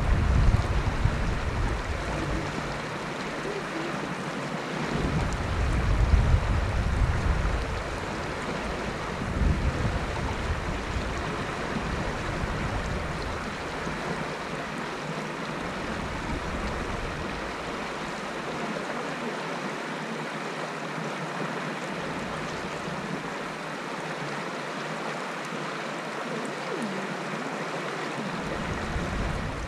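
Shallow mountain stream running over stones in a steady rush, with wind buffeting the microphone in low rumbling gusts during about the first half.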